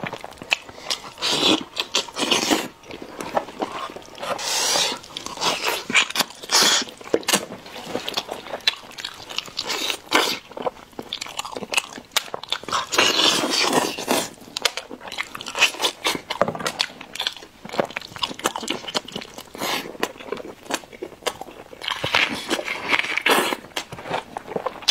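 Close-miked eating of a roasted lamb head by hand: chewing, wet mouth noises and irregular crunches and bites, coming thick and uneven throughout.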